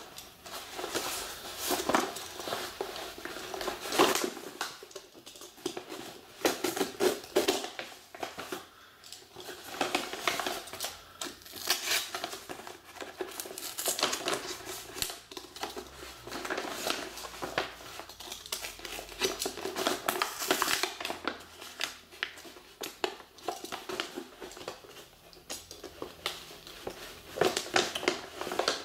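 Packaging being handled and opened: plastic and paper crinkling and rustling in irregular bursts, with small clicks and taps.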